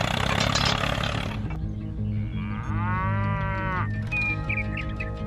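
A motor running noise that cuts off about a second and a half in, followed by background music with a steady beat and a single cow moo, rising and then falling, about two to four seconds in.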